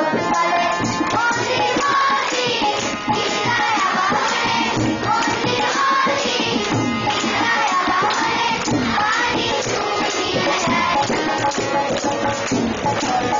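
A large group of children singing together in unison over a steady percussive beat.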